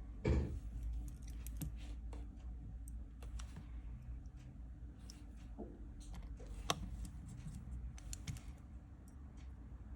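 Light, irregular clicks and taps of small repair tools and phone parts being handled on a workbench. There is a louder knock about a quarter second in and a sharp click near seven seconds, over a low steady hum.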